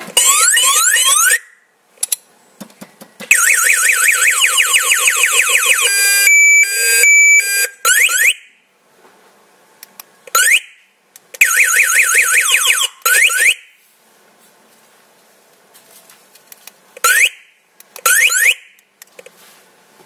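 Motorcycle anti-theft alarm sounding through its pair of chrome speakers as its key-fob remote is pressed. It plays a series of electronic siren tones with pauses between them: rising chirps, a fast repeating rising siren lasting a few seconds, and short steady beeps.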